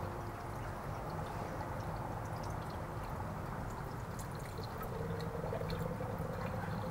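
Distilled water being poured into the radiator filler of a 2006 Honda CBR1000RR to flush the cooling system: a steady pour and trickle, with a faint hum joining about five seconds in.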